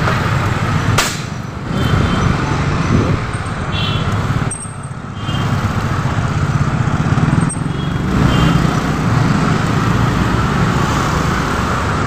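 Dense road traffic close by, with motorcycle and car engines running in a continuous rumble and a sharp click about a second in.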